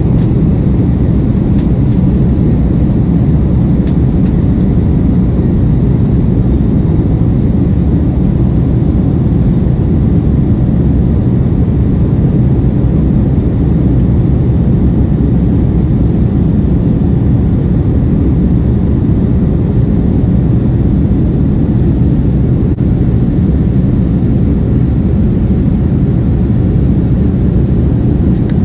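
Steady low rumble of jet engines and rushing air inside an airliner's cabin, heard while the aircraft climbs after takeoff.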